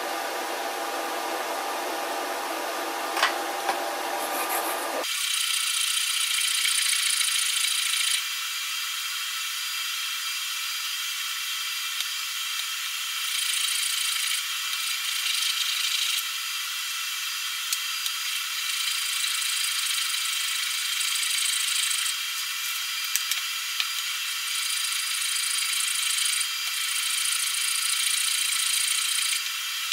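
A steady mechanical hum for about five seconds, cutting off abruptly. Then a plane iron in a honing guide rubs back and forth on sandpaper over a stone slab: a gritty, hissing scrape that swells and eases in stretches of a few seconds.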